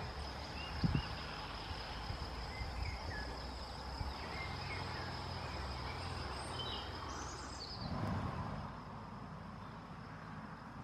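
Outdoor woodland ambience: a low steady rumble with a constant thin high tone over it, and scattered short chirps from small birds calling around the tree.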